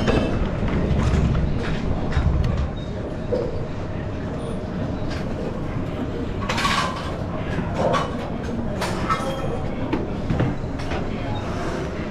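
Gym room noise: a steady rumble with scattered knocks and clanks of equipment. The rumble is heaviest in the first couple of seconds.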